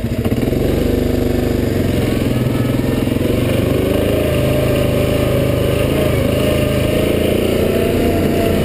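Yamaha Grizzly 700 SE ATV's single-cylinder four-stroke engine pulling away, picking up in the first half-second, then running steadily under load over a rough dirt track. Heard close, from on board the machine.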